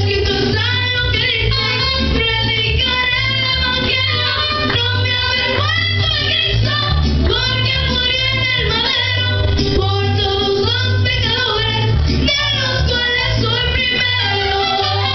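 Mariachi band playing: women singing the melody together over violins, trumpets and guitars, with a steady pulsing bass line underneath.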